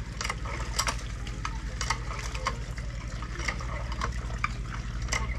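Water from a pump spattering and splashing as someone rinses off, with irregular crackling drips over a steady low hum.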